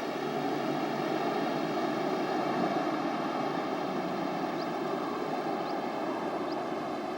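A steady engine drone with a constant pitch, like an aircraft's, that fades in and holds even. From a little past halfway there are a few short, faint, high rising chirps.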